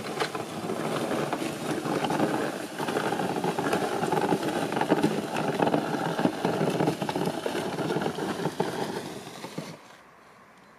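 Black plastic trash bags rustling and crackling as they are carried along, a dense scratchy noise that stops suddenly near the end.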